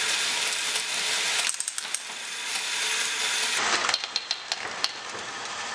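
Small LEGO balls speeding around a ring of curved LEGO train rails with a steady rushing rattle, then a run of sharp clicks and clatters as a brick set in their path knocks them off the track.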